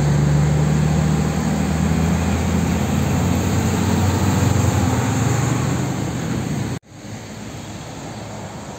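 Diesel tractor-trailer hauling a shipping container passing close by, its steady low engine hum and tyre noise slowly fading as it pulls away. About seven seconds in the sound cuts off abruptly to a quieter, steady street-traffic hum.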